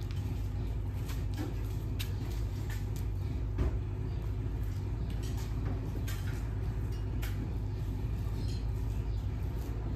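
A steady low machine hum, with a few scattered light knocks over it; the loudest knock comes about three and a half seconds in.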